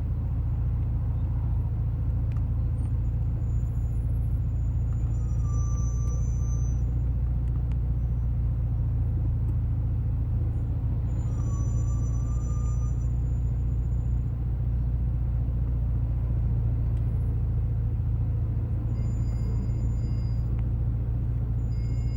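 Car on the road with a steady low rumble, its Hawk HP+ brake pads giving short high-pitched squeaks about three times. The squeak comes from these performance pads, noisy in daily use.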